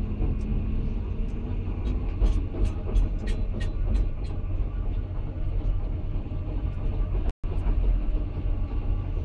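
Caterpillar 329 excavator's diesel engine and hydraulics running steadily as heard from inside the cab, a heavy low rumble with scattered sharp clicks and knocks. The sound cuts out for an instant a little after seven seconds in.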